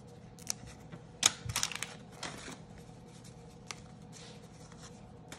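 1987 Topps baseball cards being flipped through by hand, card stock sliding and clicking against the stack in a scatter of light clicks and rustles, busiest in the first two and a half seconds.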